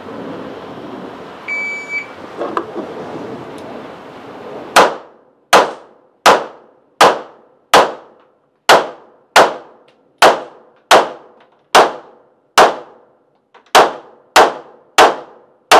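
A short electronic shot-timer beep, then a string of about fifteen pistol shots at a steady pace, roughly one every three quarters of a second, each sharp crack ringing off briefly.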